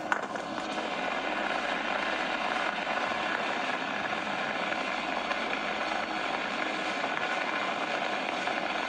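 Sea-Doo jet ski running flat out across the water: a steady, even rush of engine, spray and wind noise on the on-board camera, with a single knock at the very start.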